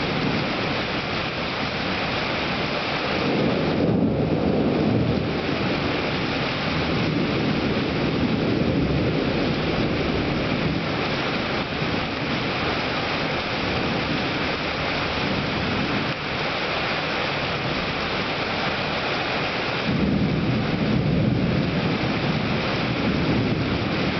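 Steady heavy rain with thunder rumbling, the low rumble swelling louder about four seconds in and again near the end.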